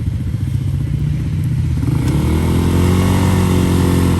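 ATV engine running, then revving up about halfway through, its pitch rising and holding high before dropping off at the end.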